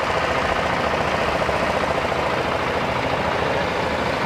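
A loud, steady engine-like mechanical running sound.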